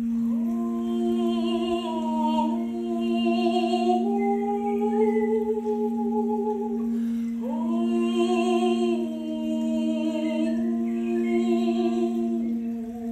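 A Sugilite Alchemy crystal singing bowl rings a steady low tone as its rim is rubbed with a wand. A woman's voice sings two long wordless phrases over it, stepping between a few held notes; the second phrase starts about halfway in.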